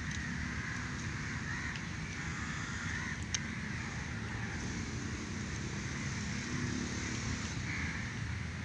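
Crows cawing among the trees over a steady low rumble, with a single sharp click about three seconds in.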